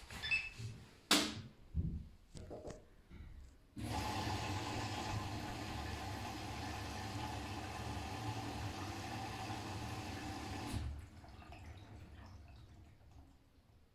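Siemens iQ500 washing machine taking in water at the start of its delicates/silk programme: after a few light clicks and knocks, the inlet valve opens and water rushes in steadily for about seven seconds, then cuts off, leaving a faint trickle.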